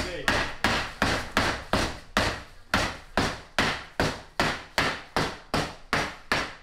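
Hammer blows struck in a steady, rapid rhythm, about three a second, each trailing off briefly.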